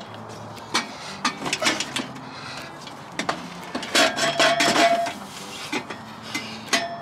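Stainless steel exhaust pipes of a Borla ATAK system clinking and knocking as they are pushed and slid into place under the car, in a string of irregular sharp metal knocks.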